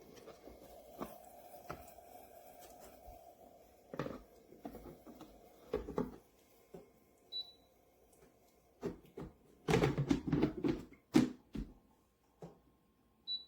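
Knocks and clatter from a humidifier being handled, with a dense run of knocks near the end. Two short high beeps from its control buttons sound about six seconds apart.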